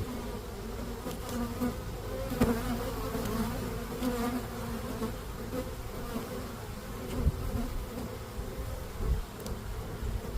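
Honeybees buzzing in a steady hum around an open hive during a frame inspection. There are a couple of low bumps in the second half.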